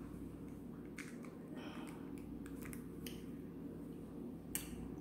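A small plastic sauce packet being torn open and handled: a few faint crinkles and clicks, the sharpest about four and a half seconds in, over a low steady hum.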